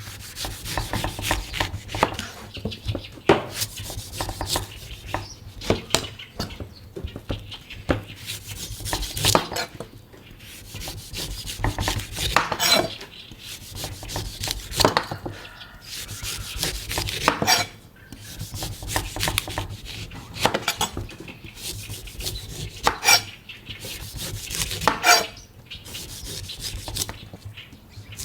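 A knife cutting a coconut: a quick, irregular run of chopping and scraping strokes, with several louder strikes spread through.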